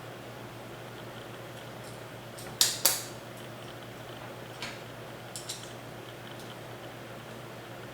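Small metal hardware being handled during assembly: two sharp metal clinks close together about two and a half seconds in, then a few fainter clicks. A low steady hum runs underneath.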